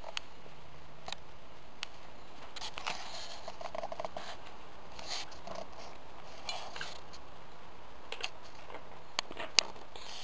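Soft scattered rustles and small clicks from a goat nosing about in straw bedding, with a few short snuffling noises and one sharp click near the end.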